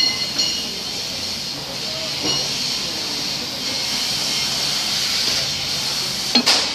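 Steady hiss of argon purge gas flowing, with a single sharp knock near the end.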